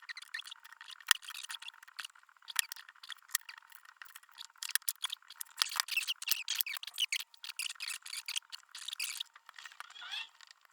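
Metal parts of a freshly cleaned and greased lathe chuck being handled: irregular clicks, taps and scraping, with a short rising squeak near the end.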